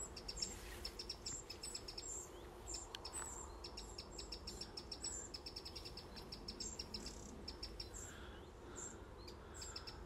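Eurasian wrens calling faintly from dense bushes: repeated runs of rapid, short, high-pitched ticking notes.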